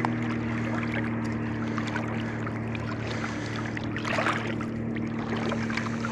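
Lake water lapping and sloshing in the shallows with small splashy ticks, a slightly louder splash about four seconds in, over a steady low hum.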